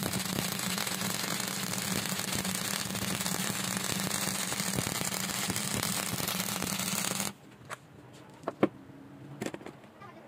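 Electric arc welding: the arc crackling and sizzling steadily over a low hum, stopping abruptly about seven seconds in. A few sharp clicks follow in the quiet after.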